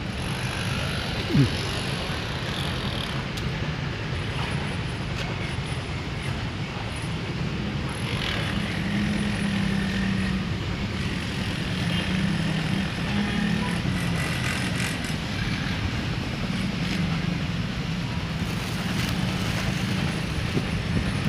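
Steady low rumble of vehicle engines, with a brief sharp sound about a second and a half in.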